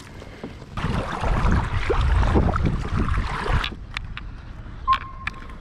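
Water splashing and sloshing at the side of a kayak, mixed with handling noise, as a dense rumble from about one second in until nearly four seconds. A few light clicks and a short steady beep follow near the end.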